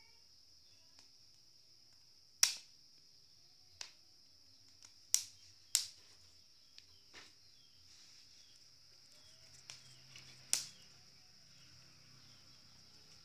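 A handful of sharp pops and clicks, the loudest about two and a half seconds in and near ten and a half seconds, from maize cobs roasting on a wire grill over a charcoal stove. Behind them runs the steady high trill of crickets.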